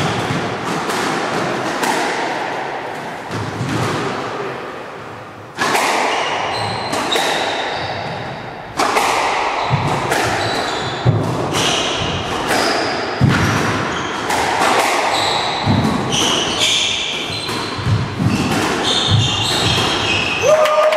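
Squash rally: the ball smacks off racquets and court walls in an irregular string of sharp hits with a hall echo, and sneakers squeak in short high chirps on the wooden court floor.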